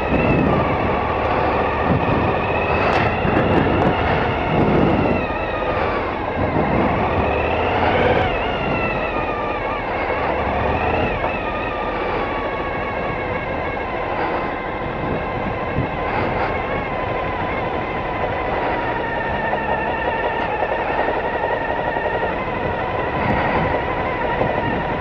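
Suzuki V-Strom 1000's V-twin engine running under throttle as the motorcycle climbs a dirt hill, its pitch rising and falling several times in the first half, then holding steadier.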